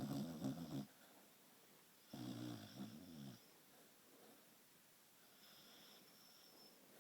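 Dachshund snoring: two snores, one at the start and one about two seconds in, each lasting about a second. A faint high whistle of breath follows near the end.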